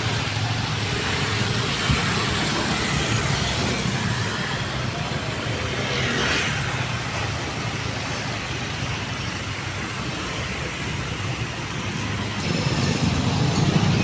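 Street traffic of cars, scooters and motorcycles passing close by, engines running with a steady low rumble. About six seconds in a vehicle goes by with a rush of tyre and air noise, and near the end the engine noise grows louder as a group of motorcycles approaches.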